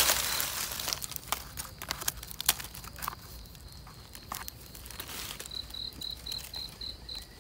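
Rustling and scattered sharp crackles, loudest in the first second and then thinning out. From about five and a half seconds an insect chirps in a regular high-pitched pulse, about three chirps a second.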